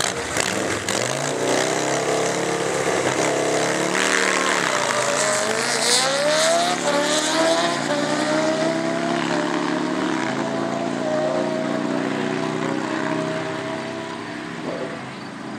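Drag-racing motorcycles accelerating hard down the strip, the engine pitch climbing and dropping sharply at each of about three upshifts. The sound eases off near the end as the bikes get farther away.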